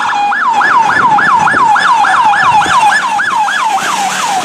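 Police vehicle's electronic siren in yelp mode: a fast rising-and-falling wail that repeats about four times a second, loud, over the hum of passing traffic.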